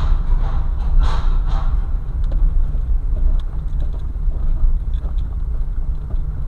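Car driving on the road: a steady low rumble of engine and tyre noise.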